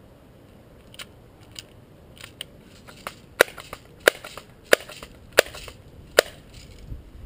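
Sharp clicks and snaps from a Daisy BB gun. A few small clicks build to five loud cracks about two-thirds of a second apart through the middle, with fainter clicks between them.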